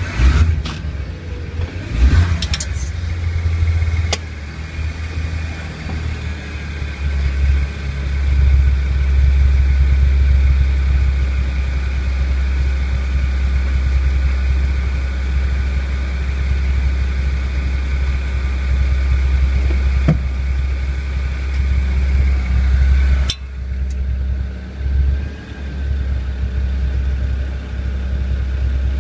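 BMW 1 Series on the move, with a steady low drone and a faint steady whine over the running noise, which the owner suspects is a bad wheel bearing. The drone changes suddenly about three quarters of the way in, then carries on unevenly.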